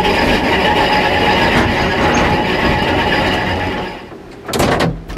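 Old electric narrow-gauge tramcar of the Höllentalbahn running along the track, heard from inside the driver's cab: a steady rumble and rattle of wheels on rail with a faint whine. About four seconds in the running noise falls away, and two short louder sounds follow near the end.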